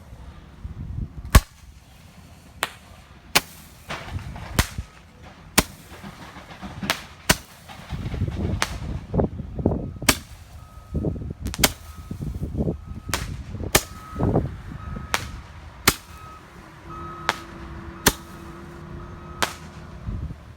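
Fireworks going off: a long series of sharp pops, about one a second, over low wind rumble on the microphone.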